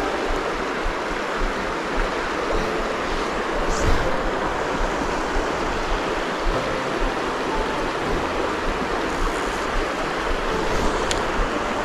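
Shallow mountain stream rushing over rocks: a steady, even rush of water.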